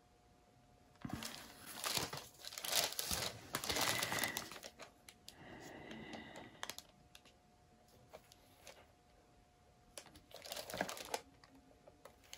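Plastic crinkling and rustling in several irregular bursts as gloved hands handle the plastic around a paint-pouring turntable.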